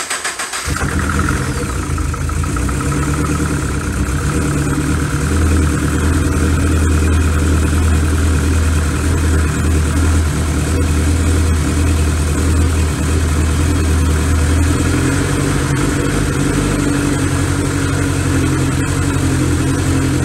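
Freshly rebuilt Subaru FA20 flat-four engine on its first start after oil priming, catching within the first second and then running at a steady idle. Its low note changes about fifteen seconds in as the idle settles.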